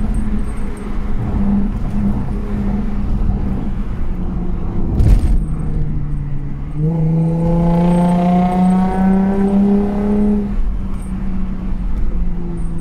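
Car engine running, then revved about seven seconds in: its note climbs slowly for about three seconds and drops back. A sharp knock about five seconds in.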